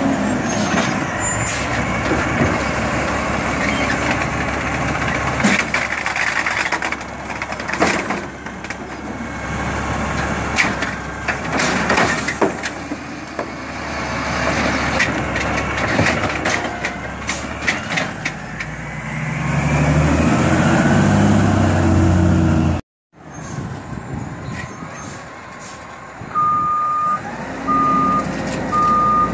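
Automated side-loader garbage truck running, its arm lifting and tipping a yard-waste cart with repeated clanks and knocks, and the engine rising under load as the arm works. After a cut, the truck is further off and its reversing alarm beeps about once a second near the end.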